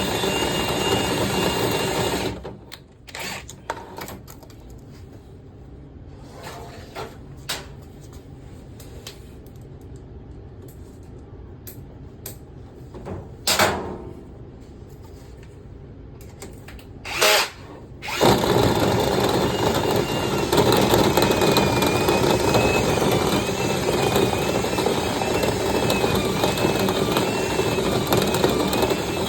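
Motorised dryer-vent cleaning equipment running loud and steady, then switched off about two seconds in. There are a few clicks and knocks, and then it starts up again about 18 seconds in with a wavering high whine over the noise.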